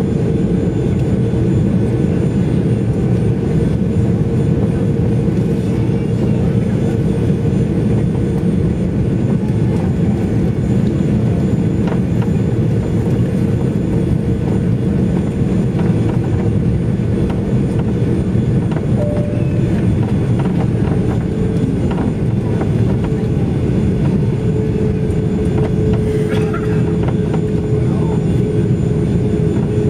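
Cabin noise inside an Airbus A340-600 taxiing, its four Rolls-Royce Trent 500 engines running at low power: a steady rumble with a constant hum.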